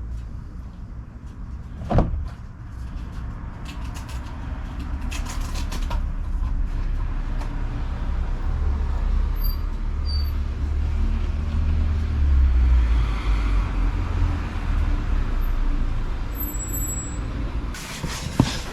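A road vehicle's low rumble, swelling to a peak about two-thirds of the way through and then fading away as it passes. A sharp knock comes about two seconds in, and a few clunks come near the end.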